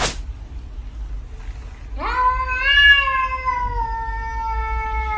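A domestic cat giving one long drawn-out meow, starting about two seconds in and lasting about three seconds, its pitch rising briefly and then slowly sinking. A short sharp knock sounds at the very start.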